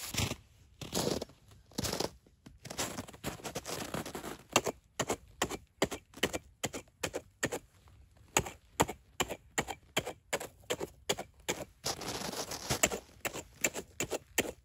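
A hatchet blade cutting into crunchy snow in short strokes: crisp crunches about two to three a second, running together into denser scraping near the end.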